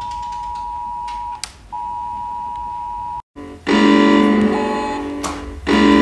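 UK mobile phone emergency alert tone: a steady two-pitch electronic tone, broken once briefly about a second and a half in, then cut off abruptly after about three seconds. Loud background music follows, its strong notes coming about every two seconds.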